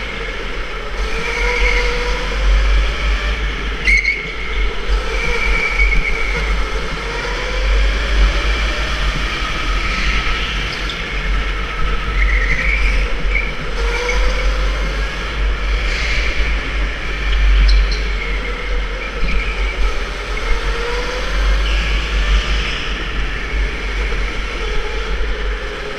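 Electric indoor go-kart's motor whining, its pitch rising and falling again and again as the kart speeds up and slows for the corners, over a steady low wind rumble on the camera microphone.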